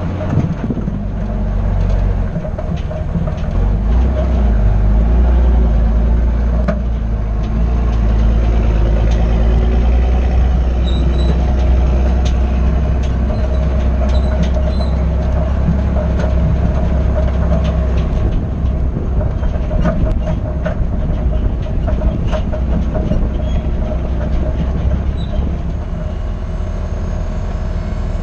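Diesel engine of heavy earthmoving equipment running steadily under load, with scattered metallic clanks and rattles.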